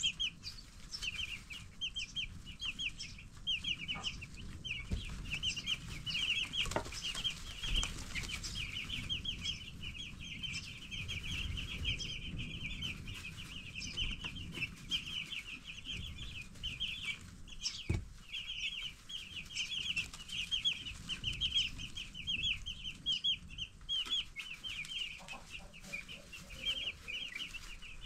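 A flock of ten-day-old broiler chicks peeping nonstop, many short high chirps overlapping several times a second, with a few faint knocks among them.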